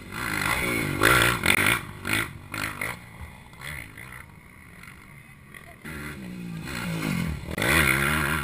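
Motocross dirt bike engines revving as riders come down the track, the pitch rising and falling through the gears. The sound is loudest about a second in and again near the end.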